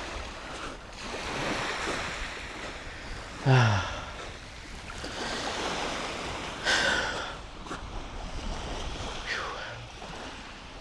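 Sea waves washing onto the beach, swelling and easing twice, with a brief voiced sound, a short hum or sigh from the person recording, about three and a half seconds in.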